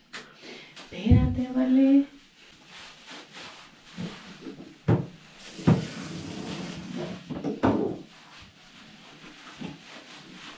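Hands rubbing and lathering a wet dog's coat in a bathtub, with several sharp knocks against the tub and a brief hiss just past the middle. A short low voice-like hum about a second in.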